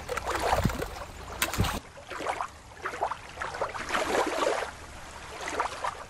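Shallow water lapping and trickling over rocks at the shoreline, with a low rumble underneath. About two seconds in, it cuts sharply to a thinner-sounding recording of irregular underwater water swishes and sloshes.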